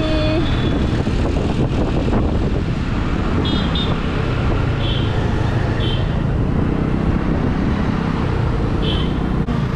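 Steady road traffic noise, a dense rumble of passing vehicles, with a few brief high-pitched beeps or chirps.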